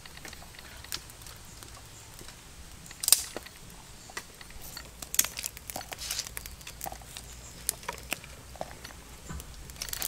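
Light rustling and small scattered clicks as fresh red chilies and garlic cloves are handled and dropped into a wooden mortar, with a sharper tap about three seconds in.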